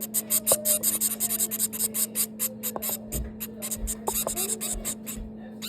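Nestling finches giving rapid, high-pitched begging cheeps, about eight to ten a second, as they beg for food; the calls pause briefly near the end.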